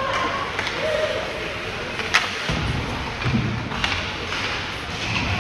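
Sharp knocks of an ice hockey game in an arena, puck and sticks striking the boards. The loudest knock comes about two seconds in and another near four seconds, over a murmur of spectators' voices.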